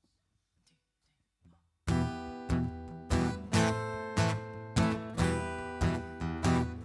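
Near silence, then about two seconds in an acoustic guitar starts strumming chords in a steady rhythm, about two strokes a second, opening the song.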